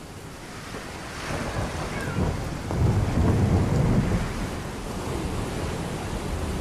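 Rushing water noise with a deep rumble that swells about three seconds in and eases after four.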